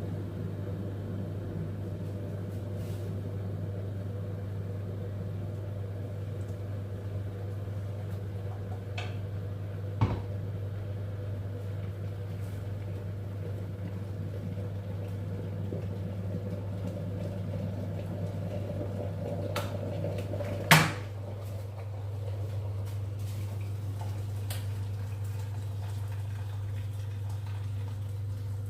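Kitchen sounds during cooking: a steady low hum with a few sharp knocks, like pots or utensils being set down. The loudest knock comes about two-thirds of the way through, after which part of the hum drops away.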